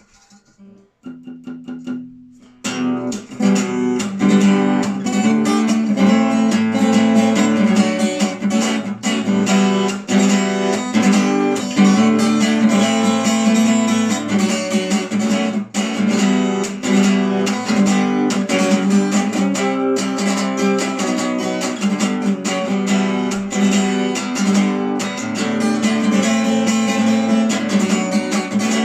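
Acoustic guitar playing a song's introduction: a few single plucked notes, then steady rhythmic strumming of chords starting about two and a half seconds in.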